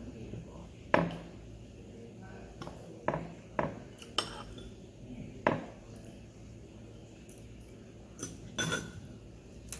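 Metal spoons and forks clinking against ceramic bowls during a meal: about eight scattered clinks, the sharpest about a second in.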